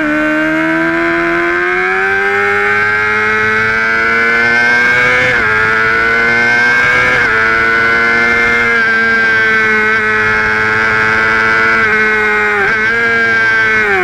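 Onboard sound of a sport bike's engine under throttle: its pitch climbs steadily over the first five seconds, then holds fairly even with a few brief dips, over a rush of wind noise.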